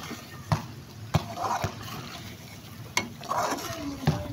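A perforated metal skimmer stirring chicken karahi in a metal pot, knocking and scraping against the pot about six times at uneven intervals, over the sizzle of chicken and tomatoes frying.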